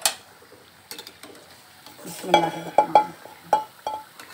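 Perforated steel skimmer scraping and clinking against a pan of hot oil as fried gulgule are lifted out, with a sharp click at the start and about five ringing metal clinks in the second half. A low sizzle of frying runs underneath.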